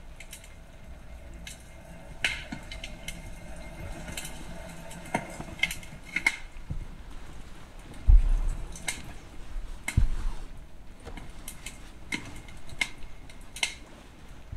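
Scattered light clicks and knocks of small objects being handled, over a faint steady hiss, with two heavier low thumps about eight and ten seconds in.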